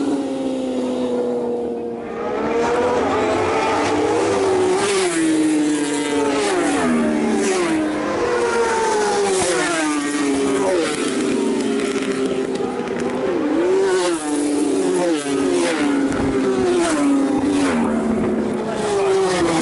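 Racing motorcycles at full throttle on a street circuit, several bikes in succession, their engines rising in pitch and falling off again over and over as they run through the gears and pass.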